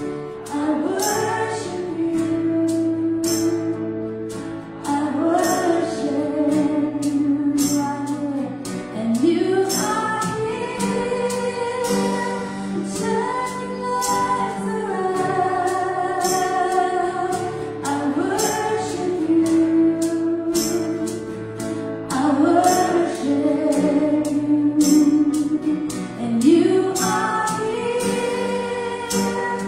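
Live worship song: women singing lead over a Kurzweil keyboard and an acoustic guitar, with a steady percussive beat.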